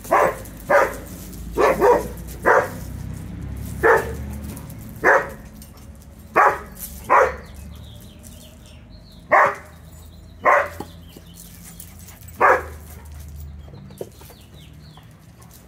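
Dog barking, about a dozen single sharp barks at uneven intervals, stopping near the end. The barking is attention-seeking while another dog is being petted.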